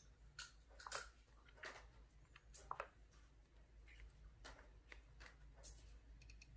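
Faint, irregular ticks and light rubbing from fingers handling and tapping a smartphone's glass and frame, over a low steady hum.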